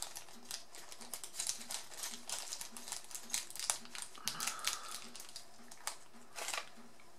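A small zip-lock plastic bag of stud earrings being opened and fingered: a rapid, irregular run of light clicks and crinkles of thin plastic.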